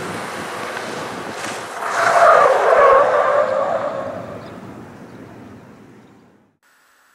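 Large Chevrolet SUV driving in reverse, then its tyres squealing loudly for about a second and a half, starting about two seconds in, as it spins through a reverse 180 (J-turn). The sound then fades away.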